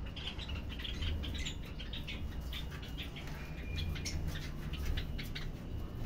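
A flock of lovebirds chattering in a stream of short, high, squeaky chirps, several a second, over a low rumble.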